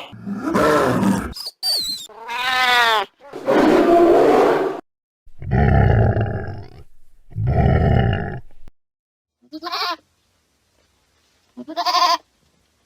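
A run of loud animal roars and growls, six separate calls in quick succession, one sweeping down in pitch. Two short bleat-like calls follow, one near the end.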